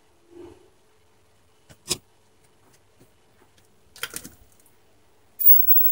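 Scattered handling clicks and light knocks as an oscilloscope test probe and equipment are handled at a circuit board: a sharp click about two seconds in, a quick run of clicks about four seconds in, and a louder thump near the end.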